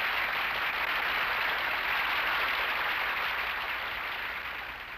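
Crowd applauding steadily, fading away near the end.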